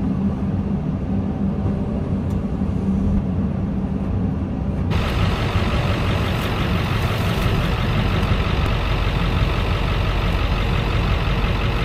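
Heavy diesel engines of a Caterpillar long-reach excavator and a dump truck running steadily as the excavator loads mud into the truck bed. About five seconds in the sound changes abruptly to a brighter, noisier engine drone.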